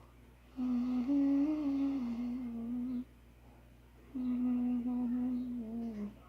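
A girl humming a slow tune in two long phrases of held, gliding notes, with a short pause between them.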